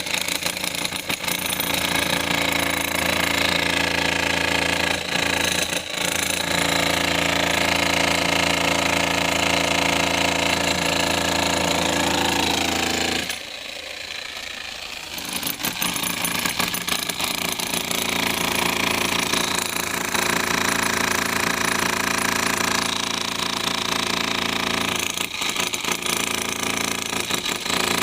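A demolition hammer breaking concrete, hammering continuously. It stops for about two seconds around the middle, then starts again.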